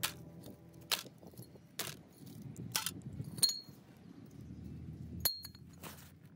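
A series of sharp clicks and light taps, about one a second, from small tools and phone parts being handled; two of them, about three and a half and five seconds in, give a short high metallic clink.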